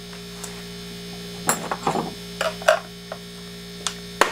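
A steady electrical hum runs throughout. Over it come a handful of short clicks and knocks, from a wrench being handled against the chainsaw's plastic housing, starting about a second and a half in.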